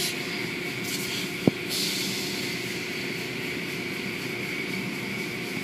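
Automatic tunnel car wash running: water spraying and hanging cloth strips washing over an SUV, a steady mechanical hiss and hum, with one sharp click about a second and a half in.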